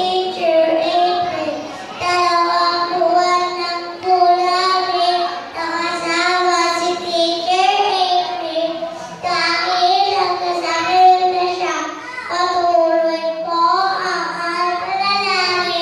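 A young girl singing solo into a microphone, holding long, wavering notes in phrase after phrase.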